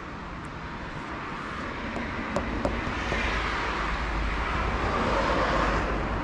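A car driving past, its tyre and road noise swelling with a low rumble to its loudest about five seconds in.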